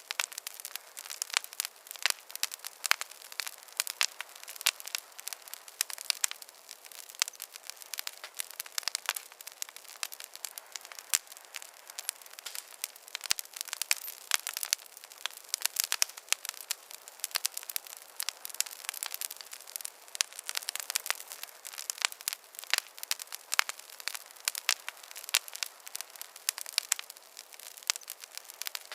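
Wood fire in a fireplace crackling steadily, with dense irregular sharp pops and snaps over a soft hiss.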